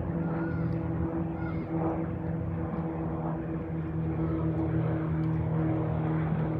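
Small piston-engine floatplane running steadily, a low, even engine-and-propeller hum.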